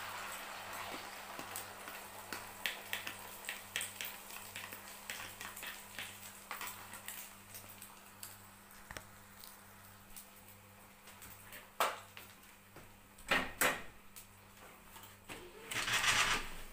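Beaten egg sizzling in hot oil in a frying pan, the hiss dying down over the first few seconds into scattered small crackles. Later come a few separate knocks and, near the end, a brief louder rustling burst.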